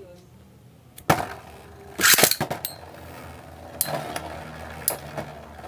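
Beyblade spinning tops launched from a ripcord launcher into a clear plastic stadium. A sharp clack comes about a second in, then a loud rattling burst as they are ripped off and land. After that the tops keep up a steady whir on the plastic floor, broken by a few sharp clacks.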